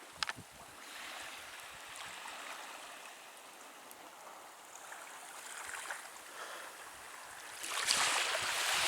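Water washing on a beach shore: a steady hiss that grows louder near the end, with a few short clicks just after the start.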